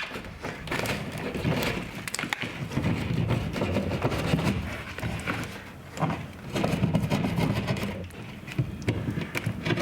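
Utility knife cutting and scraping away broken drywall around a hole, with a steady run of small irregular cracks and scrapes as the gypsum and paper give way.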